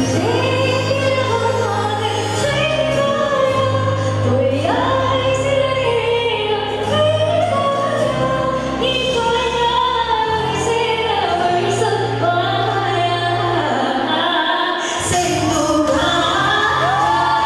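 Woman singing a Tamil song live into a handheld microphone over instrumental accompaniment with a steady bass line. Near the end the bass drops out for a moment, then the accompaniment comes back in strongly.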